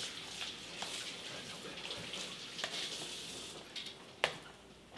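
Spoon stirring sliced strawberries in glaze in a clear plastic bowl: a steady wet squishing with a few light clicks of the spoon against the bowl, and one sharper tap a little after four seconds in.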